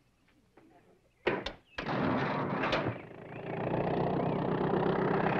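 A few sharp clunks about a second in, then the old truck's engine starts up and runs steadily.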